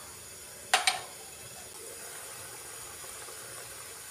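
Gravy boiling in a pan, heard as a faint, steady hiss, with a short, sharp double click about three-quarters of a second in.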